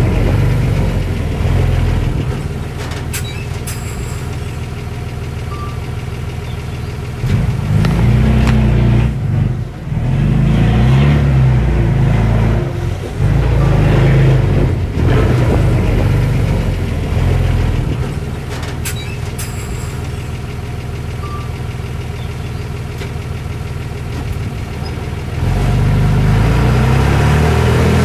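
Heavy diesel engine of earthmoving machinery running under changing load. It grows louder for about ten seconds from a quarter of the way in, eases back, and rises again near the end.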